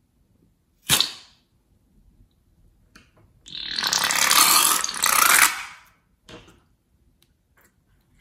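Scissors snip through a rubber balloon's neck with one sharp click about a second in. About three and a half seconds in, the liquid filling the balloon squirts out of the cut neck into a bowl of slime: a loud, noisy rush lasting about two and a half seconds, with a short break midway.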